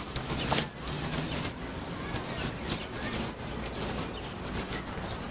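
Plastic bags and wrapped food being handled and rummaged in a briefcase: irregular crinkling and rustling.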